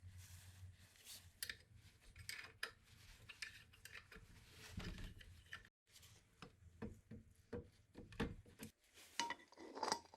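Light metallic clinks and knocks, irregular and quiet, of tools and metal parts being handled.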